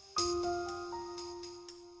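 Background music: a chord struck just after the start, then short higher notes moving over a held low note, fading slowly.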